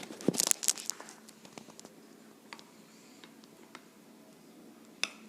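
Slime mixture being handled in a bowl: a quick flurry of soft clicks and taps in the first second, then scattered faint clicks and squishes, and one sharper click near the end.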